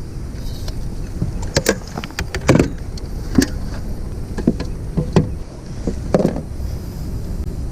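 Irregular knocks and thumps on a kayak, about eight of them, while a hooked bass is fought and landed. A steady low rumble runs beneath them.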